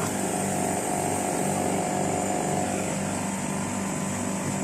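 Split air conditioner's outdoor unit running steadily during refrigerant charging: the compressor's even low hum with the fan.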